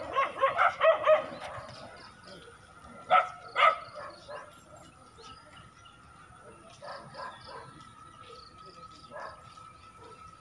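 Dog barking: a quick run of barks at the start, then two loud barks about half a second apart, and a few fainter barks later on.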